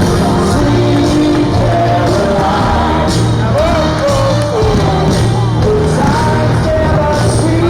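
Loud rock music with a singing voice over a steady, repeating bass line.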